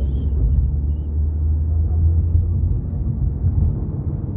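Steady low rumble of a car driving along a road, engine and tyre noise heard from inside the moving car.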